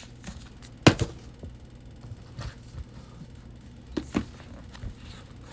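Books being handled as their covers are opened and checked: a few sharp knocks and taps, the loudest about a second in and two more around four seconds in.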